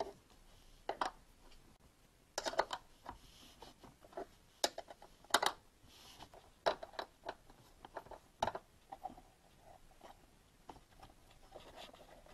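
Metal wrench working a 10 mm bolt on the rear parcel-shelf trim, with irregular sharp clicks and short scrapes of metal and plastic as it is fitted and turned. The clicks come in clusters during the first half and grow smaller and quieter near the end.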